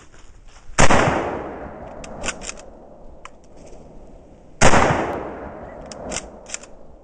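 Two rifle shots from a 1943 Mosin M38 carbine in 7.62×54mmR, about four seconds apart, each trailing off in a long echo. After each shot comes a quick series of metallic clacks as the bolt is worked to eject the case and chamber the next round.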